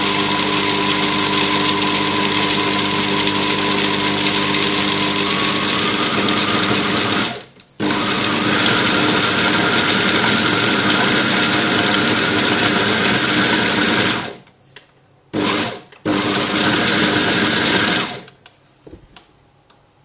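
Arçelik Roboset food processor motor running steadily, its blade grinding roasted peanuts into paste; as the nuts grind finer the machine speeds up on its own. It is switched off briefly about seven seconds in, runs again, stops, gives one short burst, runs once more and cuts off near the end.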